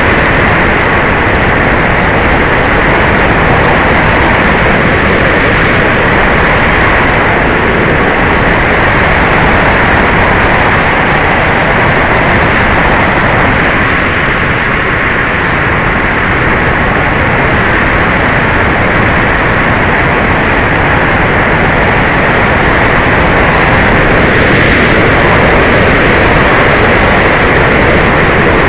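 E-Flite Apprentice RC trainer plane in flight: its electric motor and propeller running together with a loud, steady rush of airflow, with no clear pitch and little change in level.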